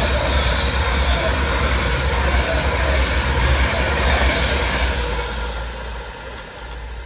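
Passenger train running through the station, its wheel and rail noise loud and steady, then fading away over the last two seconds as it moves off.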